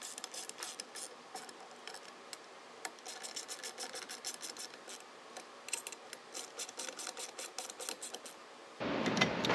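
A 5/32 in hex driver turning and tightening the small screws of a roof rack's load bar clamp, heard as faint, sharp ticks, scattered at first, then in quick runs of about four or five a second.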